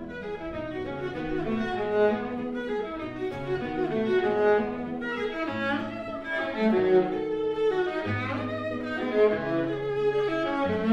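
Violin and classical guitar playing a classical duet: a bowed violin melody of sustained notes over guitar notes below.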